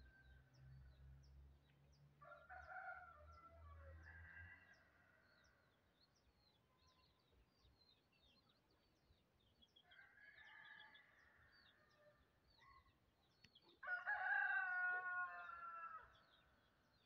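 Rooster crowing three times, the last, about fourteen seconds in, the loudest and falling in pitch at its end. Faint high chirps of small birds run underneath.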